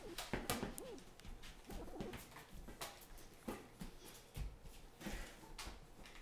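Soft cooing from a small child, a few short rising-and-falling sounds, mixed with scattered light knocks and thumps of a ball and small feet on a wooden floor.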